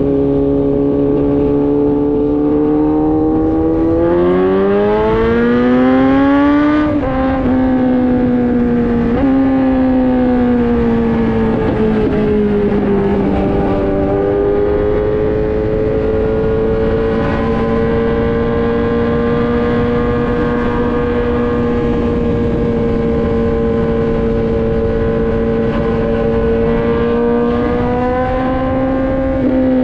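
Kawasaki Z900's inline-four engine running through an Austin Racing full exhaust. It pulls at steady revs, then accelerates with a rising note about four seconds in. The pitch drops sharply at a gear change about seven seconds in, then the engine settles into a long steady cruise that lifts slightly near the end.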